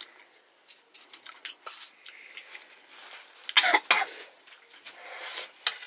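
A person coughing, loudest a little past halfway through, among small clicks of a spoon against a metal plate.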